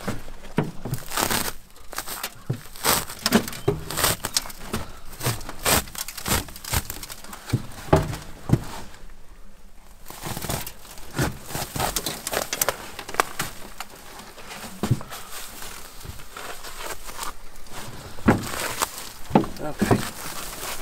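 Plastic net wrap being pulled and peeled off a round hay bale, crinkling, crackling and tearing against the dry hay in a quick, irregular run of rustles, with a short lull about halfway through.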